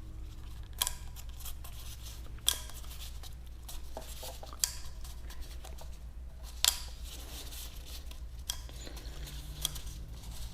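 Small sharp clicks and rustling from hands working a new, oiled rubber O-ring onto a plastic oil filter cap and cartridge, with about four distinct clicks spread over the seconds. A steady low hum runs underneath.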